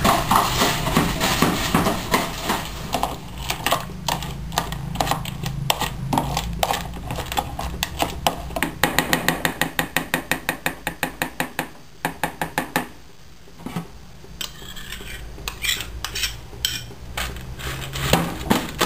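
Dog food bowls clattering and clinking over and over, with a fast, even run of clicks in the middle and scattered clinks later.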